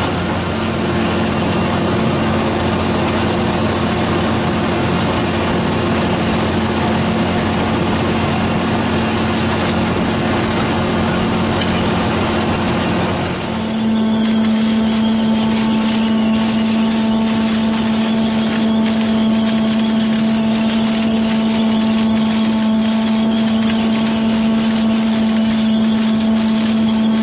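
2010 prototype Pik Rite 240 tomato harvester running, a steady machine hum with constant tones. About halfway through, the pitch pattern changes abruptly to a different set of steady tones, then runs on.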